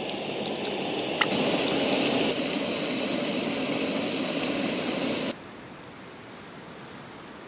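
Steady hissing of a kettle boiling for a brew, cut into a few short pieces. It drops suddenly to a faint hiss about five seconds in.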